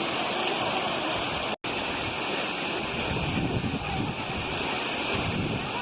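Waterfall rushing steadily: a dense, even roar of falling water. The sound cuts out for an instant about a second and a half in.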